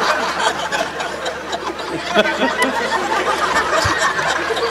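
Audience laughing and chuckling, a steady mix of many voices.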